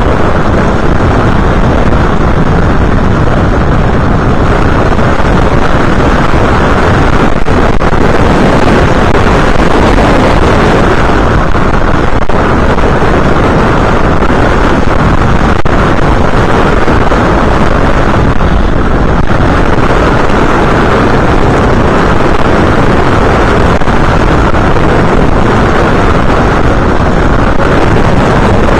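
Loud, steady rush of wind and propeller noise on the onboard camera's microphone of an FPV aircraft in flight.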